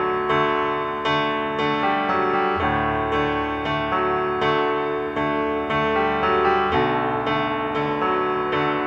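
Background piano music: a steady, even run of struck notes.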